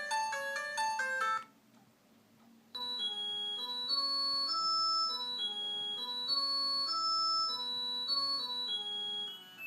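Polyphonic ringtones playing from a 2006 Xinhua dual-SIM mobile phone. One tune ends about a second and a half in. After a short silence another melody starts and plays until just before the end.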